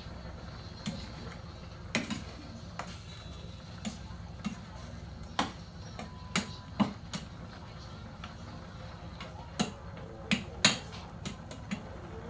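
Long-handled metal spoon clinking and scraping against a stainless steel pot while stirring chunks of pork, in irregular knocks with the loudest cluster about ten to eleven seconds in, over a steady low hum.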